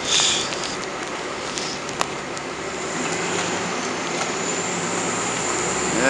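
Traffic noise in a slushy street, with a city bus engine drawing near. From about halfway a low engine hum and a faint high whine come in and grow steadily louder, with a single click about two seconds in.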